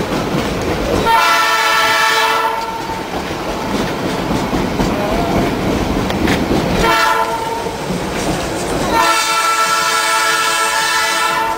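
A train locomotive sounds its horn in three blasts, long, short and long, each a full chord of several tones. Between the blasts is the steady running rumble and clatter of the moving train.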